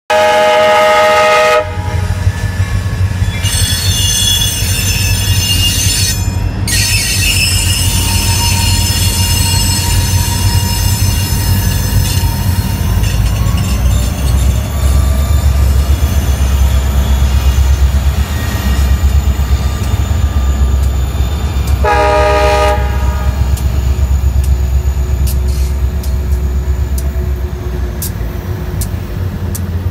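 Freight train hauled by several diesel locomotives passing at a grade crossing, with a deep rumble throughout. The air horn sounds a chord that ends about a second and a half in, then gives another short blast about 22 seconds in. Thin high squealing tones from the wheels run through the middle of the passage.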